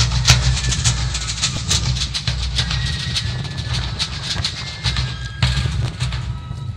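Marching military drum corps playing snare drums and a bass drum in quick repeated strokes, with a few high held notes from the band in the middle. Heavy wind rumble on the microphone runs underneath.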